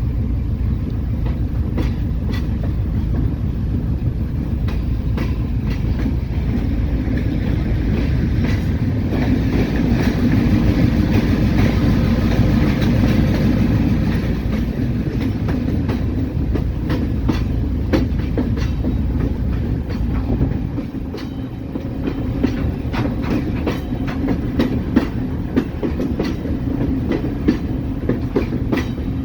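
Diesel-electric locomotive hauling ballast cars at slow speed: steady engine drone with the clickety-clack of wheels over rail joints. The engine grows louder for several seconds in the middle and eases off briefly about two-thirds of the way through.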